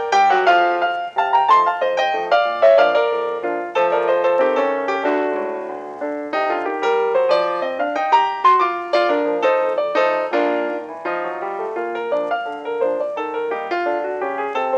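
Piano music: a piano playing quick, busy runs of notes with no other sound.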